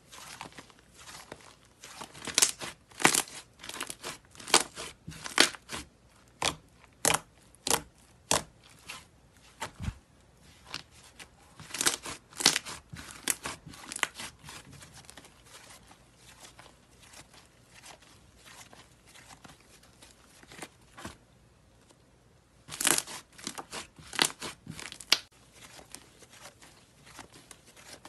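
White fluffy slime being squeezed, stretched and folded by hand, giving clusters of sharp crackles and pops, with a quieter spell of soft squishing in the middle.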